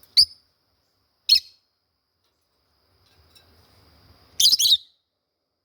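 Lovebirds calling: two short, sharp, high chirps a second apart, then a quick burst of rapid chattering about four and a half seconds in.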